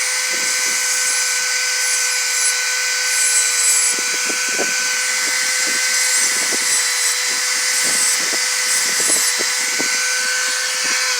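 Small high-speed power tool running with a steady high-pitched whine while grinding the steel of a homemade lock-pick hook. Irregular rasping comes each time the tool bites into the metal.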